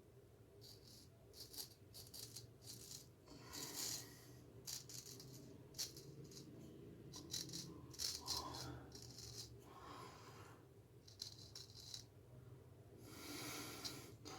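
Straight razor scraping through lathered stubble in a series of short strokes, some in quick clusters, spaced irregularly.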